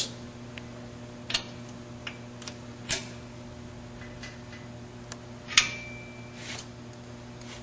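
Speed-handle socket wrench run down on lug nuts: a handful of sharp metal clinks, several with a short ring, the loudest about a second and a half in and again near six seconds.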